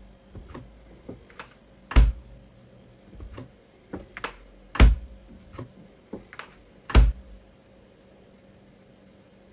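A string of irregular knocks and taps in a small room, with three much louder thumps about two, five and seven seconds in.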